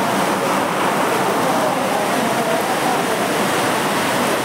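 Crowd of train passengers, many voices talking at once over a steady, even background noise.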